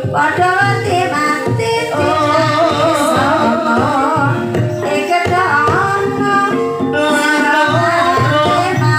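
Banyumasan ebeg music: a female singer's wavering melody over gamelan instruments and kendang hand-drumming.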